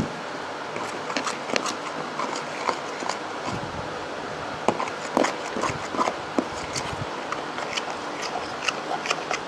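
Fluffy foam slime being stirred and worked as contact lens solution activates it: irregular sticky clicks and pops over a steady hiss.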